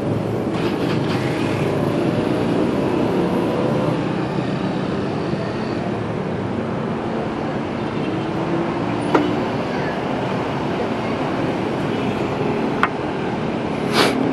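Steady vehicle engine and road traffic noise, with three short sharp clicks, the last near the end.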